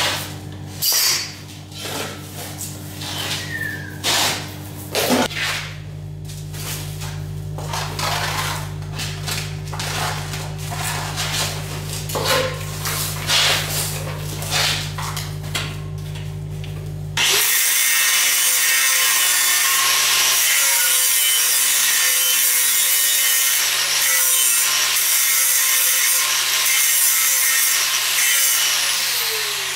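An angle grinder starts suddenly a little past halfway and runs steadily, grinding on a steel pipe joint. Before it come a series of short knocks and scrapes over a steady low hum.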